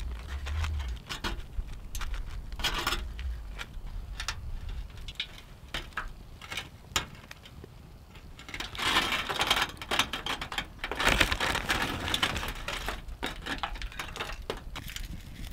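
Aluminium foil crinkling and a plastic bag of shredded cheese rustling as toppings are laid on a pizza by hand: scattered light crackles, with two longer stretches of rustling about nine and eleven seconds in.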